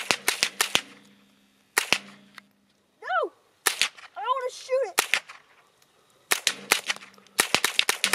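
AR-15 converted to .22 LR with a CMMG Bravo conversion kit, fired semi-automatically. A quick string of about five shots opens the sound, single shots follow a second or more apart, and another fast string comes near the end. Two brief pitched rising-and-falling calls fall in the pause between shots.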